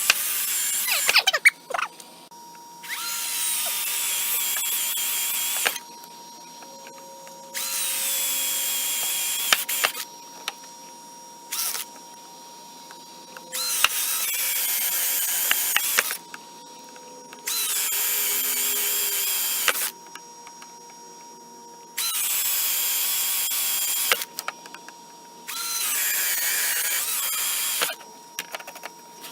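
Power drill running in about seven separate bursts of two to three seconds each, with short pauses between: a series of holes being drilled one after another.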